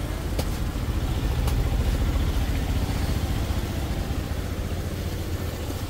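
Steady low engine rumble of a nearby motor vehicle, with two sharp clicks in the first two seconds.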